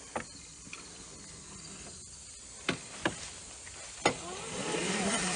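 An engine running low and steady, with several sharp knocks spread through, and the noise swelling over the last second or so.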